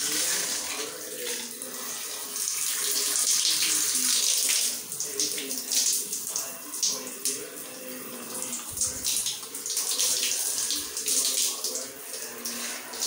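Shower water running from a handheld shower head, the spray hissing onto wall tiles and swelling and dipping as it is moved about.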